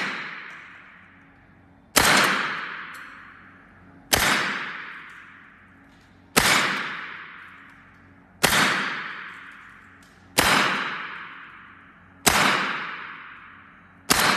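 Evanix semi-automatic PCP air rifle in .25 calibre firing seven shots, one about every two seconds, each sharp crack followed by a long echo that fades away. The rifle is emptying a magazine through a chronograph with its air reservoir at about 170–175 bar.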